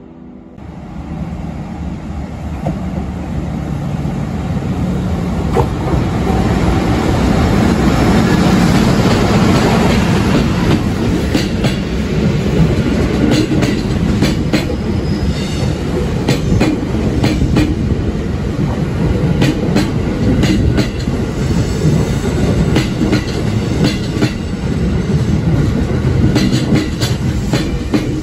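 An EF64 electric locomotive hauling a train of 205-series electric cars passes through the station at low speed. The rolling noise builds over the first several seconds as the locomotive comes near and goes by. Then the towed cars' wheels clack steadily over the rail joints as the train rolls past.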